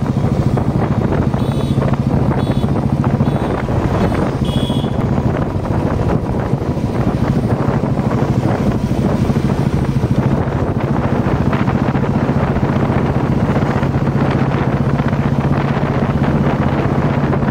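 Royal Enfield Classic's single-cylinder engine running steadily as the motorcycle rides along, with wind noise on the microphone. Three brief high-pitched tones sound in the first five seconds.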